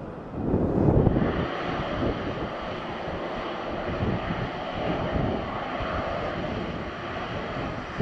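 Boeing 737-800's CFM56 jet engines running at taxi power, a steady whine over a low rumble, with a louder burst of low rumble in the first second.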